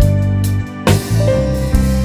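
Background music: keyboard notes held and changing over a sustained low bass line.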